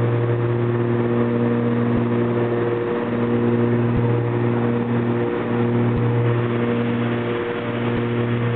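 Propeller engines of a small piston-engine commuter plane heard from inside the cabin while climbing out after takeoff: a steady, loud droning hum with a slow pulsing about every two seconds.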